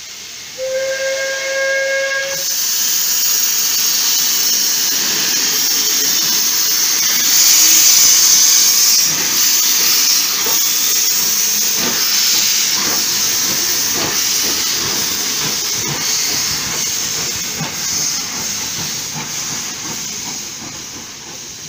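WP-class 4-6-2 Pacific steam locomotive gives a short whistle blast of about a second and a half. Then its open cylinder drain cocks hiss loudly as it starts away, with exhaust beats roughly a second apart. The hiss slowly fades near the end as the engine moves off.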